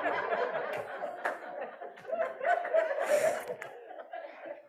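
A congregation laughing and chuckling together, dying down near the end.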